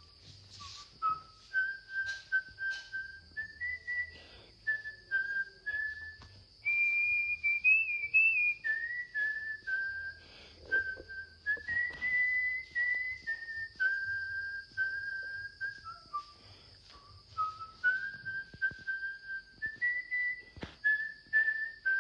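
A person whistling a slow tune, one clear note at a time, stepping up and down between held notes. A steady high insect drone runs behind it, with a few scattered clicks and knocks.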